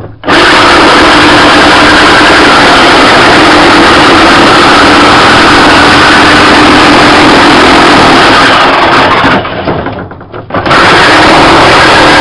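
Jigsaw cutting stainless steel sheet: loud, steady noise of the blade through the metal over the motor's whine. It stops briefly about ten seconds in, then starts again.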